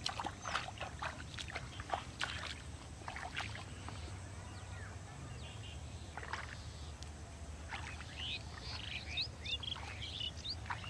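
Shallow water splashing and sloshing in irregular strokes during the first few seconds. Near the end, birds chirp in short rising calls.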